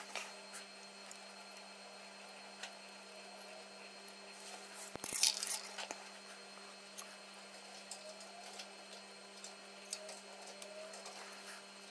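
Light clicks and taps of metal tweezers against small components on a graphics card's circuit board, with a louder cluster of clicking and scraping about five seconds in, over a steady low hum.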